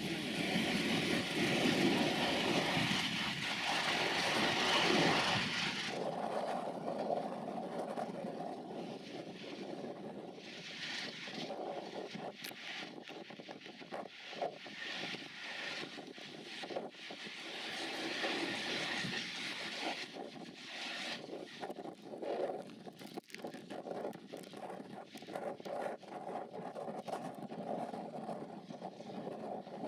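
Class 37 diesel locomotives and their test train running past, loud for about the first six seconds, then dropping to a quieter, steadier noise with scattered clicks from the wheels and track.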